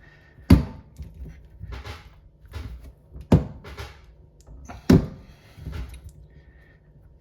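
A kitchen mixer tap's lever handle being worked loose from the tap body: three sharp knocks, the first about half a second in and the others roughly a second and a half apart, with softer handling and rattling noises between.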